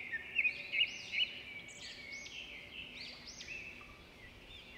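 Birds chirping, many quick overlapping calls, loudest in the first second and a half and quieter toward the end.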